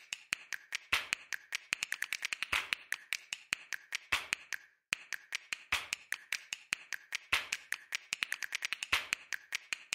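A rapid, irregular run of short sharp clicks and taps in quick clusters, with a pause of about a second midway.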